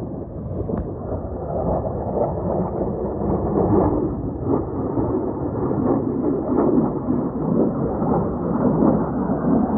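Jet engine roar of a low-flying military jet passing, a deep, steady rumble that comes in suddenly and swells slightly.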